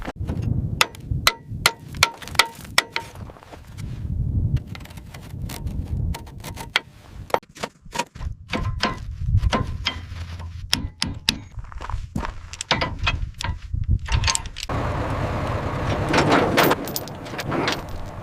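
A run of sharp knocks and clanks, several leaving a short ringing tone, over a low rumble. About fifteen seconds in, they give way to a few seconds of steady scraping noise.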